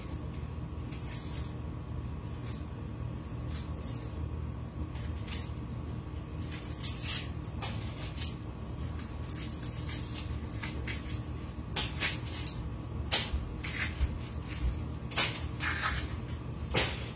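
Kitchen handling noises while a sandwich is being put together: scattered clicks and light knocks, more frequent in the second half, over a steady low hum.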